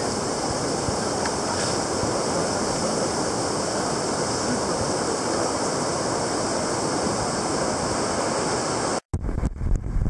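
Steady rush of whitewater rapids on the Merced River. About nine seconds in, the sound cuts out briefly and turns to rough, gusty rumbling of wind on the microphone over the water.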